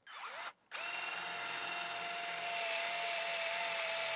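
Black+Decker cordless drill with a 1/4-inch bit boring a pilot hole through hardboard into the wooden baseboard side behind it. The drill blips briefly at the start, then runs with a steady whine from under a second in.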